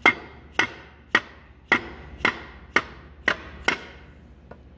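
Dead-blow hammer knocking the motor's end bell onto the frame, eight sharp blows about two a second, each with a brief ring, seating the end bell during reassembly.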